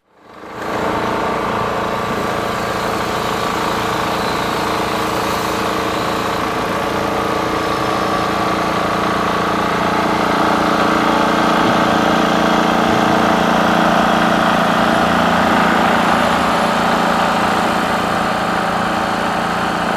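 An engine running steadily with a constant pitch. It comes in within the first second and grows slightly louder about halfway through.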